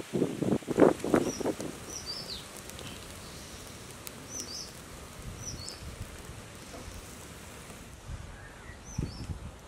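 Small birds chirping: short, high, falling chirps every second or two over a steady outdoor hiss. In the first second and a half, a few louder rustles and knocks.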